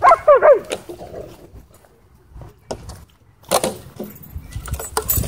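A dog gives a quick run of short, high, falling yelps, then a plastic bottle crackles and crunches on and off in a dog's mouth as it is carried and chewed.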